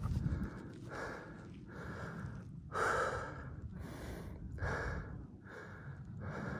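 A mountain biker breathing hard and rhythmically, a breath roughly every second, with a low rumble underneath.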